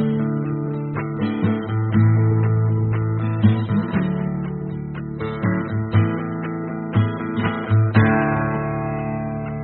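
Background music: a strummed acoustic guitar playing sustained chords with a steady rhythm.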